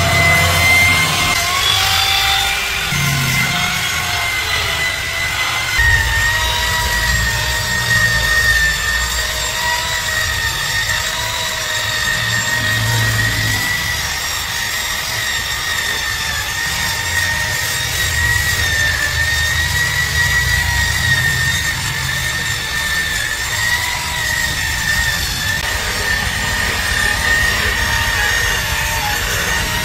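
Electric car polishing machine running steadily with a high motor whine while it buffs rubbing compound into the paint; its pitch wavers slightly as it works, over a low rumble that swells and eases.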